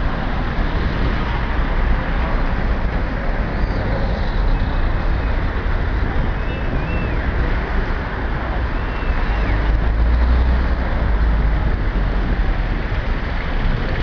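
Steady outdoor din of a large crowd talking indistinctly, over a low rumble that swells about two-thirds of the way through.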